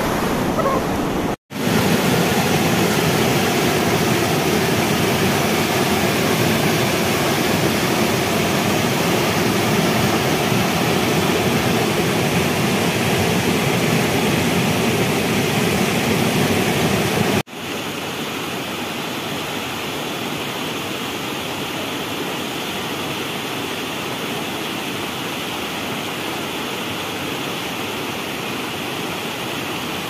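Waterfall's rushing water, a steady dense rush. It breaks off abruptly twice, about a second and a half in and about seventeen seconds in, and after the second break it goes on somewhat quieter.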